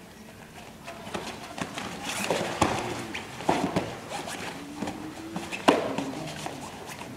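Spectators shouting and cheering at a jiu-jitsu match, with sharp claps and smacks throughout. It swells about a second in, and the loudest sharp crack comes near the end.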